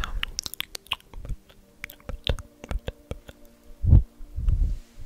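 Close-miked ASMR trigger sounds: a quick run of sharp, crisp clicks and snaps. From about four seconds in they give way to low, soft thumps, roughly two every second, over a faint steady hum.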